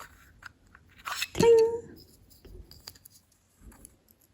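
A woman's voice saying "ding" on one held note, imitating a cash register bell, followed by faint small clicks of tiny plastic miniature pieces being handled.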